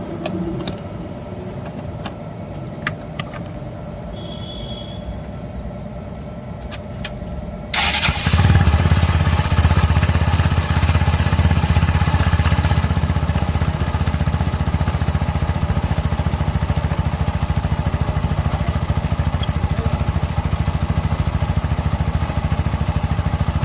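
TVS Apache 160 4V single-cylinder four-stroke motorcycle engine. It is quieter with scattered clicks at first, then comes in suddenly about eight seconds in and runs loud and steady.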